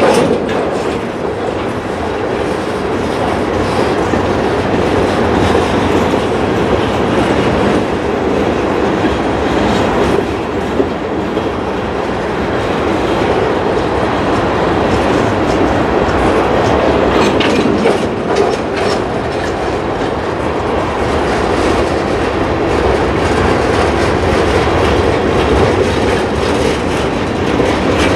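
Freight cars of a long mixed freight train rolling past: centerbeam flatcars, boxcars and a tank car. Their steel wheels make a steady rumble on the rails, with the clickety-clack of wheels over rail joints and a few sharper clacks along the way.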